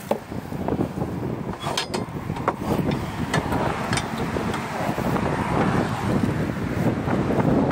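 Wind buffeting a phone microphone over the steady rush of motorway traffic, with scattered short clicks.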